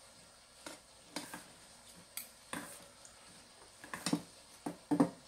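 Metal chopsticks tossing noodles in a stainless steel bowl, with irregular clinks and scrapes against the bowl's rim and sides. The loudest clinks come in a cluster about four seconds in and again near the end.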